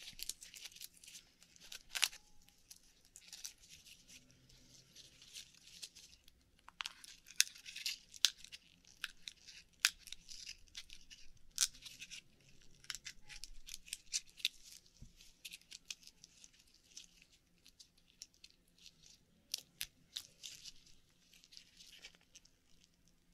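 An Akoya pearl oyster being shucked by hand: scattered clicks, crackles and tearing sounds as the shell is pried open and the flesh is worked through for a pearl.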